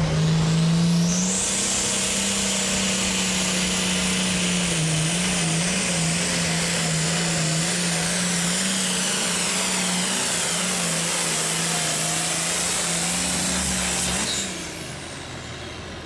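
Farmall hot farm stock pulling tractor's diesel engine at full throttle, pulling the weight sled, with a steady high whine over the engine note. The pitch climbs about a second in and holds for the pull, then the engine backs off near the end as the tractor stops and the whine falls away.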